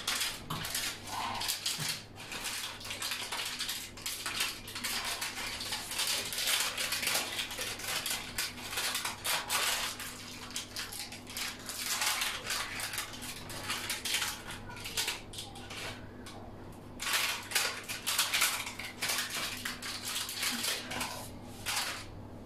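Plastic spatula scraping and prying a baked pizza off the baking paper on a baking tray, in repeated irregular scrapes; the pizza has stuck to the paper.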